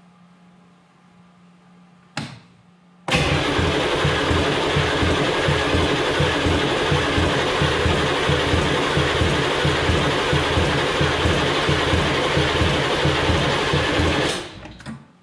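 HMMWV's 6.2-litre V8 diesel on its first start attempt after restoration. A short sharp sound comes about two seconds in. About a second later loud, steady engine sound with a fast low pulsing cuts in, runs for about eleven seconds and then stops abruptly.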